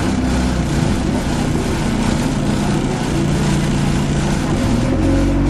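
Alexander Dennis Enviro200 Dart bus's diesel engine running steadily, with the loud ticking noise that is the bus's fault.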